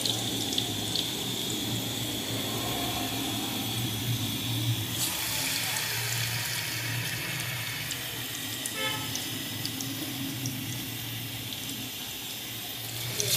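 Pakoras frying in hot oil: a steady sizzle with scattered small crackles, growing hissier about five seconds in, over a low steady hum.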